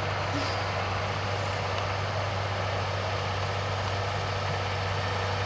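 New Holland T7-210 tractor's six-cylinder diesel engine running steadily under load as it pulls a plough through the field.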